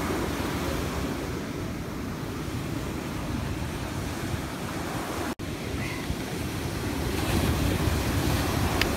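Ocean surf breaking and washing up the beach, a steady rush with wind buffeting the microphone; the sound cuts out for an instant a little past halfway.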